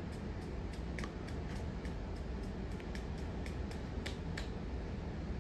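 A 42-inch SMC ceiling fan running at low speed: a steady low hum with a light regular tick about three times a second, which fades out near the end.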